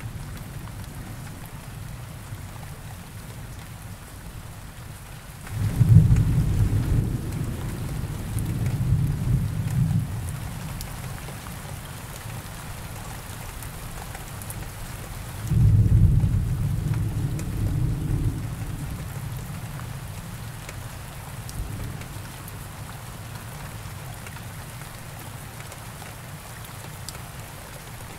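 Steady rain falling, with two long rolls of low thunder: the first starts about six seconds in, the second about sixteen seconds in, and each rumbles for a few seconds before fading back into the rain.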